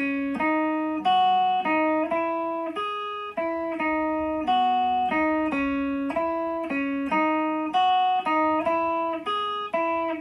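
Electric guitar playing a single-note riff through a TC Electronic Forcefield compressor pedal with its sustain at 9 o'clock, light compression. Each picked note rings on at a nearly even level until the next.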